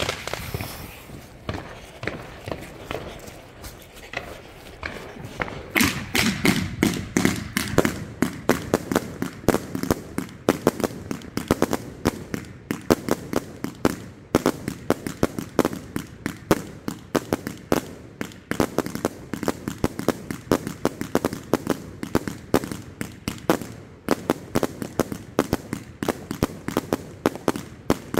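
A 100-shot firework cake firing: after a quieter start of about five seconds, the shots fire from its tubes in rapid succession, several a second, without a break, mixed with the bangs of the shells bursting in the air.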